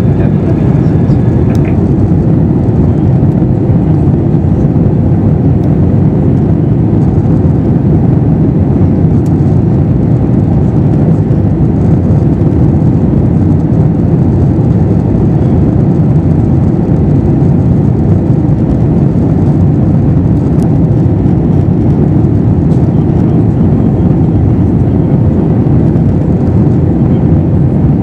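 Steady in-flight cabin noise of an Airbus A321-212: the drone of its CFM56 engines and the rush of air past the fuselage, a constant low rumble with no change in pitch or level.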